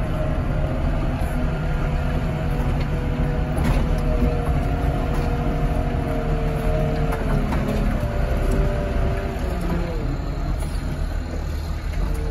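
Heavy diesel-powered hydraulic machine running as it swings, a steady engine rumble with a hydraulic whine that shifts in pitch and eases off about ten seconds in.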